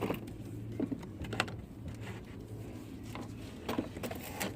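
Scattered light clicks and knocks of parts and tools being handled at an opened car door, over a steady low hum.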